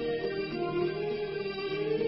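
Music with long, held notes.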